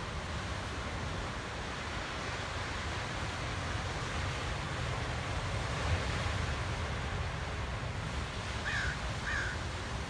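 Steady wash of ocean surf breaking on rocks, with wind rumbling on the microphone. Near the end a crow caws twice, two short harsh calls.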